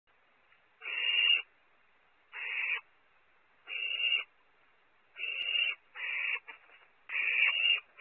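Barn owl nestlings giving hissing begging calls (the chicks' 'snoring'): six rasping hisses, each about half a second long, repeated every second or so.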